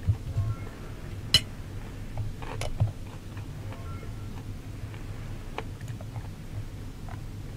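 Quiet room tone: a steady low hum with a few scattered sharp clicks. The loudest click comes about a second and a half in.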